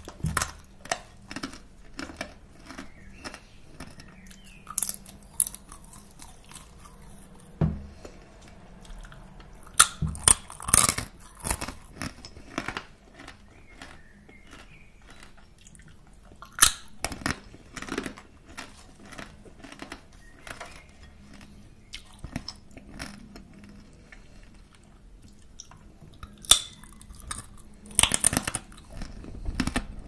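Close-up crunching and chewing of crisp puffed crackers, sharp irregular crunches with louder clusters of bites about ten seconds in, again around seventeen seconds, and near the end.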